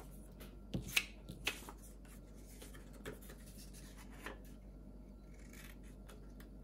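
Scissors cutting through thin card: a few separate quiet snips, spaced irregularly, with light rustling of the card between them.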